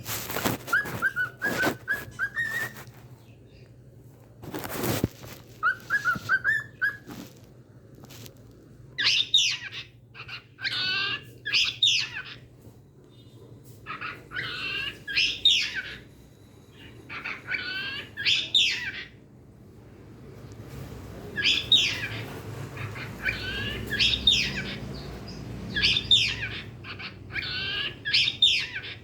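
Pet cockatiel giving repeated short chirping calls in bursts, with a couple of rising whistles early on. A few sharp knocks are heard in the first five seconds.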